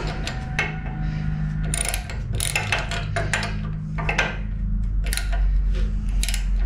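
Hand socket ratchet clicking in short, irregular runs as a bolt is turned in, over a steady low hum.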